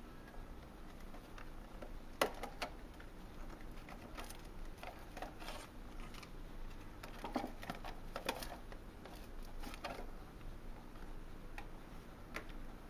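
Clear plastic packaging box being handled and opened: faint, scattered clicks and crinkles of the thin plastic, the sharpest about two seconds in, with a busier cluster of rustling clicks past the middle as the silicone stand comes out of the box.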